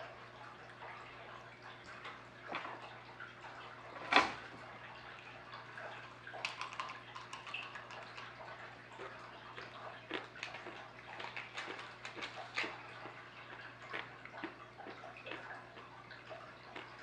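Tap water running into a 180-gallon glass aquarium, a steady trickle with many small irregular drips and splashes. A single sharp knock stands out about four seconds in, over a steady low hum.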